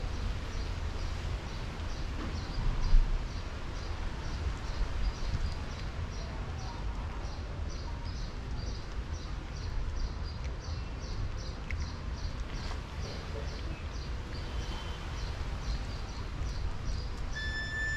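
Outdoor ambience: a steady low rumble under a faint, high chirping that repeats evenly about two or three times a second, with a single low thump about three seconds in. A steady musical tone comes in near the end.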